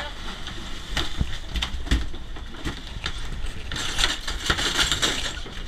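Sea water churning and splashing at the stern of a sportfishing boat, with wind buffeting the microphone and scattered knocks. A louder rush of splashing comes about four seconds in.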